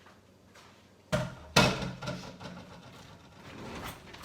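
Cookware knocking twice, about half a second apart, then softer scraping and clatter, as stiff cooked cornmeal mush is spooned from its pot into a baking pan.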